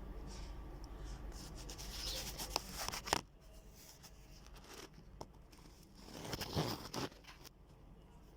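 Two short bursts of scraping and clicking as a washing machine gearbox is handled and worked by hand, showing play in it where there should be none: a worn gearbox. A low steady hum runs underneath and cuts off about three seconds in.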